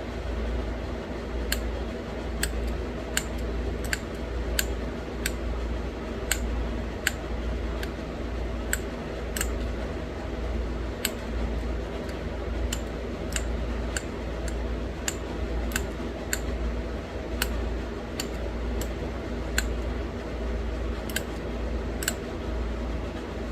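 Pressure flaking of a small stone bird point: sharp little clicks as tiny flakes pop off the edge, about once a second at an uneven pace, over a steady low hum.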